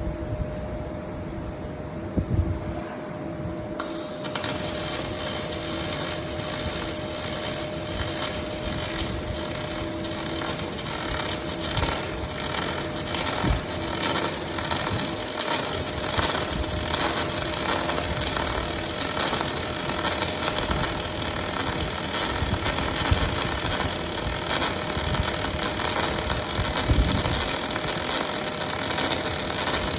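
Industrial welding robot's arc striking about four seconds in, then burning steadily with a dense hissing crackle over a steady machine hum.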